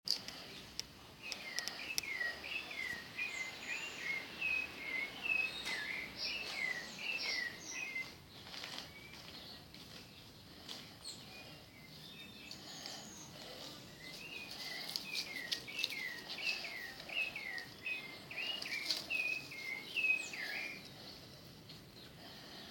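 Birds chirping outdoors: quick, repeated chirps, several a second, in two bouts with a pause in the middle, over faint background noise.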